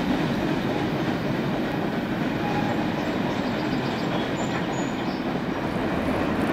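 Freight train rolling along the track, a steady noise of its wheels on the rails.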